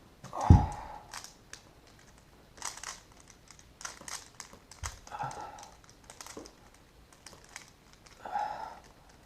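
Plastic Rubik's Cube being twisted by hand, with irregular clicks and clacks of the turning layers and clothing rustling. A heavy thump about half a second in.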